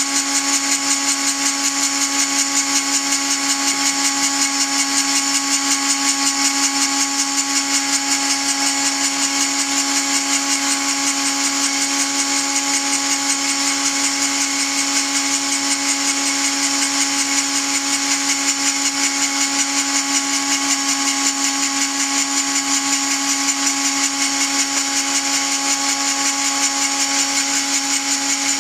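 Dremel-type rotary tool driving a belt-driven home-made tool post grinder spindle on a 7x mini lathe, running at a steady whine without a break while a small grinding point in the spindle grinds the lathe's chuck jaws.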